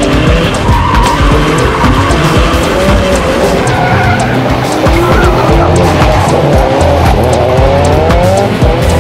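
Drift car engine revving hard in repeated rising sweeps, with tyres squealing as the car slides, over loud background music with a heavy beat.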